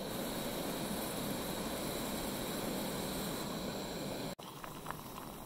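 SOTO Windmaster gas canister stove burning at full output under a pot of water, a steady hiss, running on a brand-new canister. About four seconds in it cuts to a quieter hiss with faint light ticks.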